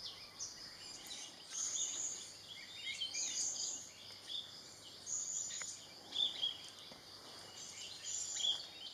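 Forest ambience: a steady high insect drone, with several small birds giving short high chirps and twitters at intervals of a second or two.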